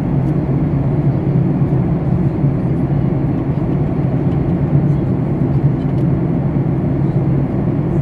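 Jet airliner cabin noise in flight: the turbofan engines and the rush of air along the fuselage, heard from a window seat as a steady low rumble.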